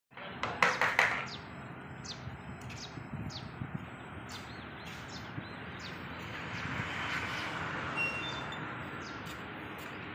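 Outdoor ambience of birds chirping over a steady hiss of traffic, which swells for a couple of seconds in the second half. A cluster of loud, sharp sounds comes about half a second in.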